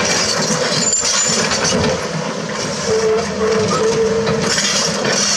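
Komatsu PC200-6 hydraulic excavator working, its diesel engine running under load with a whine that comes and goes, while the bucket scrapes and clatters through broken concrete and rock.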